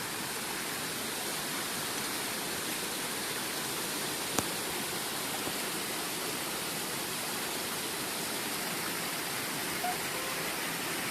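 Water running steadily over a small forest waterfall and stream, an even rushing sound, with one brief sharp click about four seconds in.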